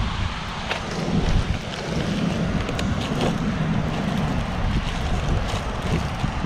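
Wind buffeting the microphone over the steady rush of water pouring over a spillway, with a few light clicks and rustles of gear being handled in a plastic crate.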